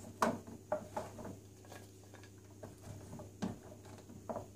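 Raw carrot sticks being laid by hand into a roasting tray among baby potatoes: a handful of soft, irregular knocks and taps, the sharpest about a quarter second in and another at about three and a half seconds.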